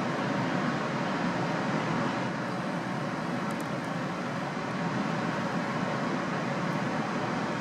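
Steady roar of whitewater rapids on the River Nile, an even rushing noise at constant level.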